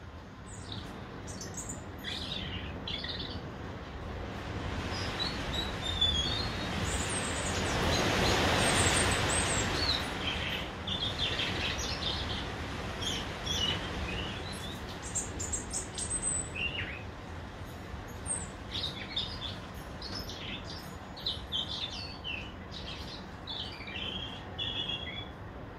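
European robin singing: short, high, thin warbling phrases, one after another. Near the middle, a broad rushing noise swells and fades and is briefly the loudest sound.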